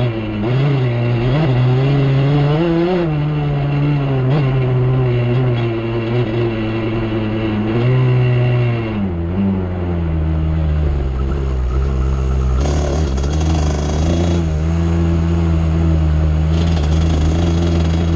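ATV engine running under changing throttle, its pitch rising and falling for the first half. Then it drops about halfway through to a lower, steadier run.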